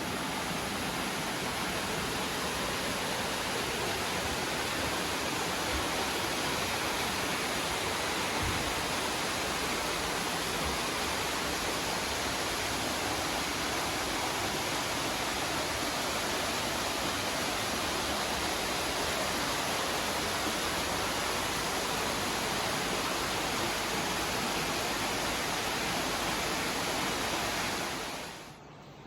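Steady rush of flowing water, even and unbroken, fading out near the end.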